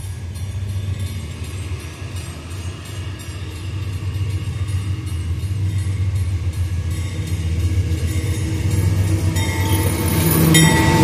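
GE AC44i diesel-electric locomotive approaching with an empty ore train, its diesel engine giving a steady low rumble that grows steadily louder. Near the end, as it draws alongside, higher steady tones and rising rail noise join in.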